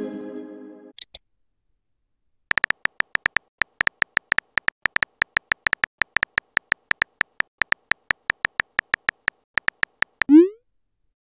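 Simulated phone keyboard typing: a quick, uneven run of short clicks for about seven seconds as a message is typed out, ending with a short rising whoosh as the message is sent. At the start, the tail of a notification chime fades out.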